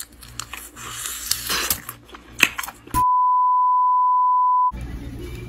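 A steady single-pitch beep tone, the test tone of a TV colour-bars screen, held for under two seconds and cut off abruptly; it is the loudest sound. Before it come a few seconds of noisy sound with sharp clicks.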